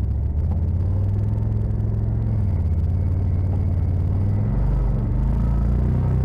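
Side-by-side UTV engine running steadily at low revs, its pitch shifting about four and a half seconds in.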